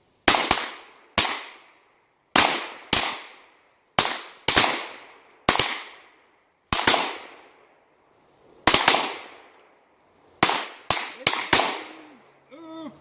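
Revolver shots fired in a rapid, irregular string, about fourteen in under twelve seconds, sometimes two or three close together. Each shot trails off in a short echo.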